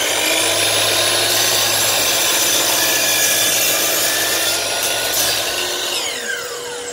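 DeWalt drop saw (mitre saw) cutting through a timber board, a loud steady whine and rasp of blade in wood. About six seconds in the motor winds down with a falling whine.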